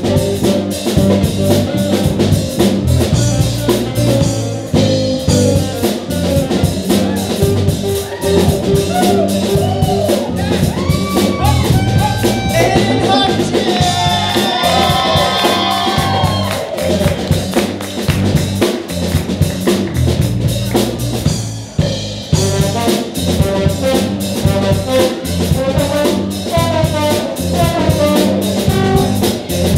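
Live band playing a jazz number: drum kit, electric guitar and bass guitar under trombones and saxophones, with the horns playing sliding melodic lines in the middle.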